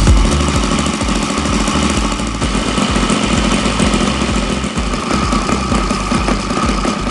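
Saito FA-120R3 three-cylinder four-stroke glow radial model engine running steadily on a test stand, with its propeller turning.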